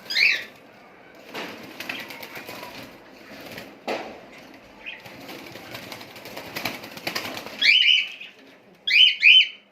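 Pet cockatiels calling with sharp, loud screeches: one at the start and three in quick succession near the end. In between comes rustling and fluttering.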